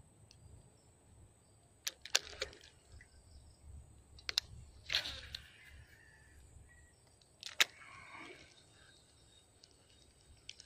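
Handling of a baitcasting rod and reel: a few scattered sharp clicks and two short rustles, over a faint steady high-pitched insect hum.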